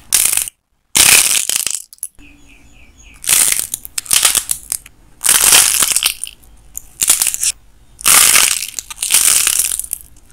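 Dried clay shells cracking and crumbling as hands squeeze them, in repeated bursts of crackling about a second apart.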